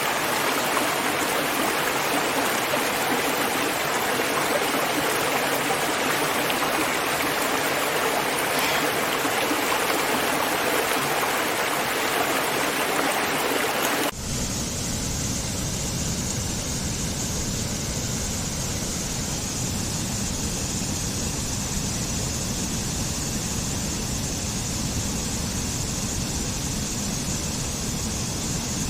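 Steady rush of falling and flowing water. About halfway through it cuts abruptly to a different, deeper rushing water sound.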